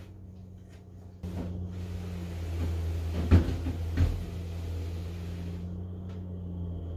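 Hard plastic bed platform being carried out through a doorway: scuffing and knocking, with two sharp knocks about three and four seconds in, over a steady low hum.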